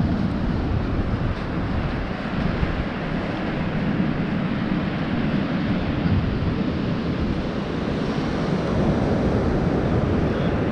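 Steady wind noise buffeting the microphone, with the wash of surf on the beach underneath.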